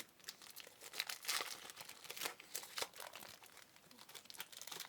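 Trading card pack wrappers crinkling and tearing as packs are opened, a run of irregular crackles.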